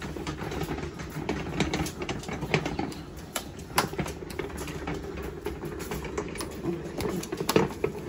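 A row of metal Tibetan prayer wheels spun by hand one after another, knocking and clacking irregularly as they turn, over a steady low hum.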